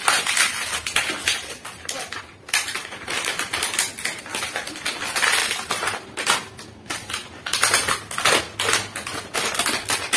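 Stiff plastic blister packaging of a toy set crackling and clicking over and over as hands pull and pry at a piece stuck in it; the piece does not come free.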